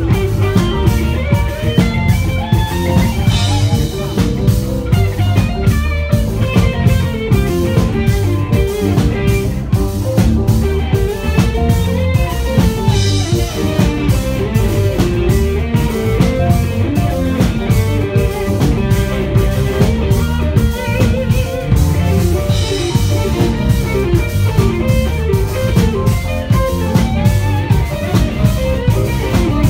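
Live band playing amplified music: electric guitar out front over keyboard and a steady drum beat.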